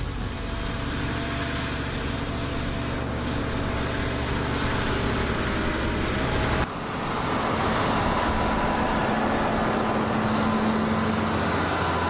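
Fendt tractor's six-cylinder diesel running steadily under load while pulling a soil-levelling scraper. About two-thirds of the way in the sound cuts abruptly to a different recording of the same steady engine work.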